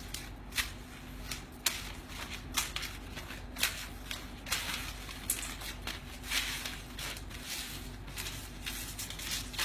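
Paper banknotes rustling and crinkling as hands handle and toss loose bills, with irregular sharp crackles. A steady low hum runs underneath.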